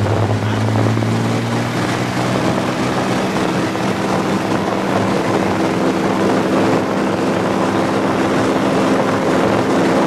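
Small single-engine propeller plane's piston engine and propeller running steadily, heard from inside the cabin.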